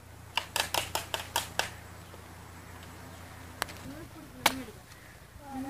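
A machete hacking into the husk of a green coconut: a quick run of about seven sharp strikes, then two single blows a few seconds later. Crows caw near the end.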